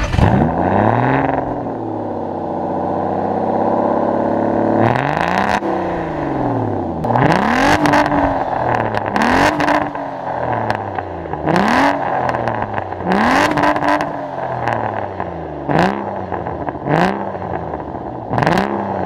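Aston Martin DBS's 5.9-litre V12 heard at its exhaust tailpipe, just started: the revs flare and settle to a steady idle. From about five seconds in it is revved in about a dozen quick throttle blips, each rising and falling in pitch, with crackles at the tops.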